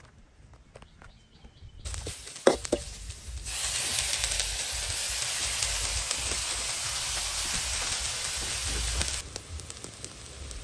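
Red ants and their eggs hitting a hot wok and sizzling, a steady loud hiss that eases near the end. A short scrape of the metal spoon is heard as the sizzling starts.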